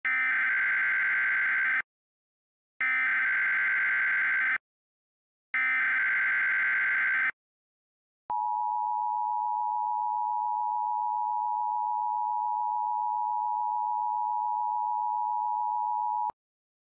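Emergency Alert System tones: three screeching SAME digital header bursts about a second apart, then the steady two-tone EAS attention signal held for about eight seconds before it cuts off.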